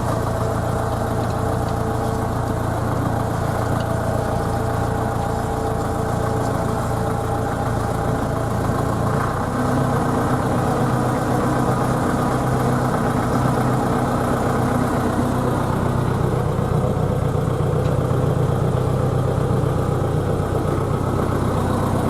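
Tractor engine running steadily at low revs with an even drone; its note shifts and gets a little louder about nine seconds in.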